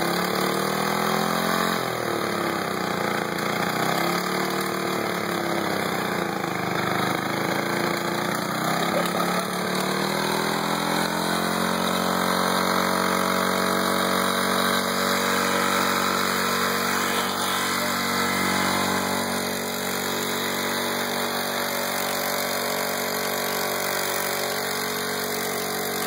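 Small engine of a Snapper machine running on transmission fluid and refusing to die. Its speed surges up and down for about the first ten seconds, then settles into a steady run.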